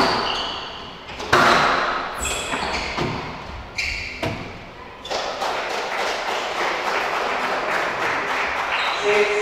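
Squash ball struck hard and hitting the court walls, sharp knocks about a second apart, with short high squeaks between them. From about five seconds in, the knocks stop and a steady noisy haze remains.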